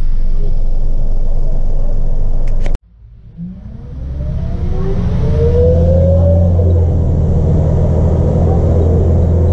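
Interior sound of a bus's Scania DC902 9-litre six-cylinder diesel running steadily, then cutting out abruptly about three seconds in. It fades back in as the engine accelerates away with a rising whine through the ZF automatic gearbox, then runs steadily.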